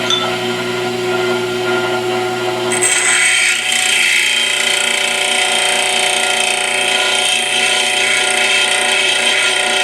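Pedestal grinder running with a high-speed steel lathe tool bit held by hand against the wheel, a steady grinding hiss over the motor's hum. About three seconds in the grinding gets louder and brighter, as the bit is pressed harder into the wheel.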